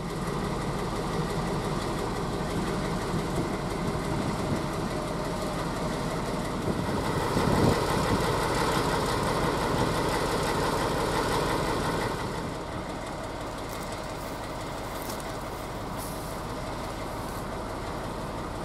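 SU46 diesel locomotive idling with a steady low engine throb. The idle swells louder for a few seconds in the middle, then settles a little quieter.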